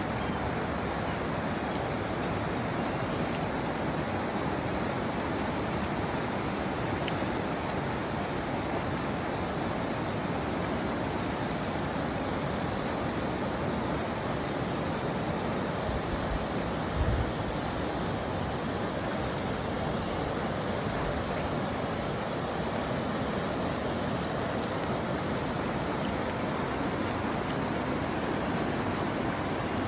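Steady rushing of a flowing river, an even wash of water noise. A brief low thump a little past halfway.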